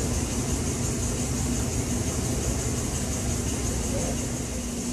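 Large pedestal shop fan running: a steady rushing drone with a constant low hum.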